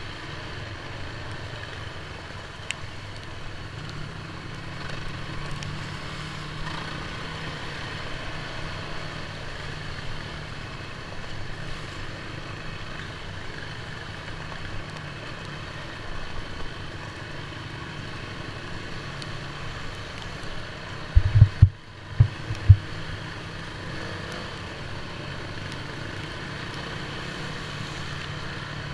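Off-road vehicle engine running steadily while driving a dirt trail, a low drone throughout. A few heavy low thumps come about three-quarters of the way through.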